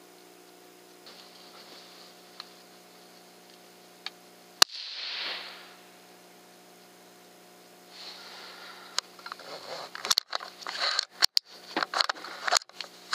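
A single shot from a 17 HMR bolt-action rifle with a SilencerCo Spectre II suppressor, about four and a half seconds in: one sharp crack with a short hiss fading after it. Over the last few seconds comes a run of sharp clicks and rustling over a faint steady hum.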